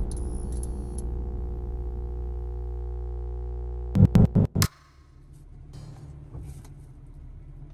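Logo-intro sound design: a sustained synthesizer drone chord with a brief high chime at the start. About four seconds in, a quick run of three or four loud stuttering hits cuts it off, leaving a quiet low hum.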